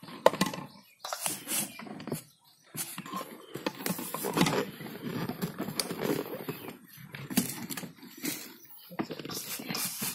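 Hands kneading and rubbing a dry, crumbly maize-flour bait mix in a stainless-steel bowl: irregular rubbing and crunching strokes with brief pauses, and occasional light clicks against the bowl.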